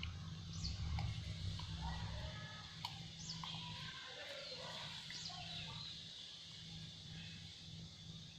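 Outdoor ambience with birds calling: a few short, high chirps that sweep downward, spaced a couple of seconds apart, and some fainter lower calls. A low rumble runs through the first couple of seconds.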